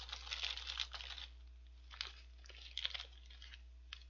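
Paper fast-food bag and burger wrapping rustling and crinkling as hands rummage through them. It is densest in the first second, with a few more crackles around two to three seconds in.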